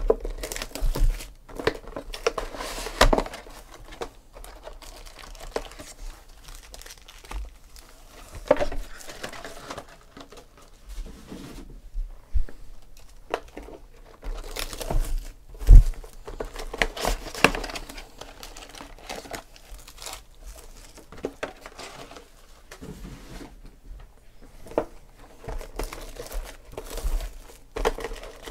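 Crinkling and rustling of plastic shrink wrap and foil-wrapped trading-card packs as 2016 Panini Phoenix football boxes are unwrapped and their packs handled, with scattered taps and one thump about halfway through.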